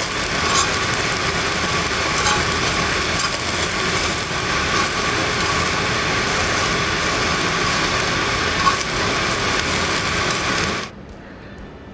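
Strips of wagyu beef sizzling on a slotted cast-iron grill plate over a flame: a dense, steady hiss with small crackles from the spitting fat. It cuts off abruptly near the end.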